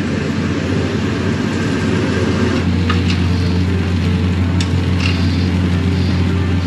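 Diesel locomotive engine idling, a steady low drone that grows a little stronger a couple of seconds in. A few sharp clicks come around the middle.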